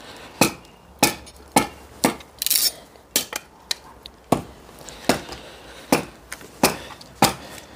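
Hatchet chopping firewood: about ten sharp wooden knocks, spaced a little under a second apart.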